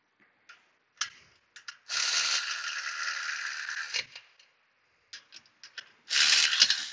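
Hand tools working the brake hardware at a wheel hub: scattered sharp clicks, then a dense ratcheting rattle of about two seconds starting about two seconds in, and a shorter one near the end.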